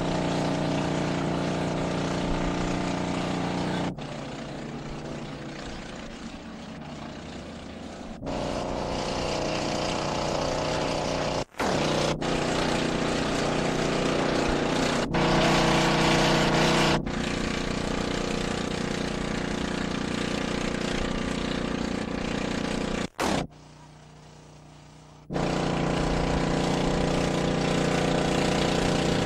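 An engine running steadily, heard across several abrupt film splices where the sound drops away and comes back. It fits the pump engine of a fire tender driving the hoses at a burning semi-trailer.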